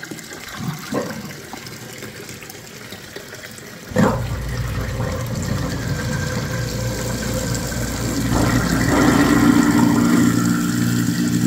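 Tap water running into a stainless steel sink. About four seconds in, a 1 hp InSinkErator Evolution 55SS garbage disposal starts with a sudden jolt and runs with a steady low hum, which grows louder and fuller about eight seconds in.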